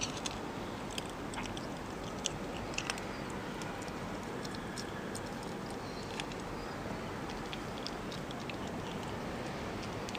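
A ferret crunching dry kibble from a terracotta dish: irregular crisp cracks and clicks, thickest in the first few seconds, over a steady hiss.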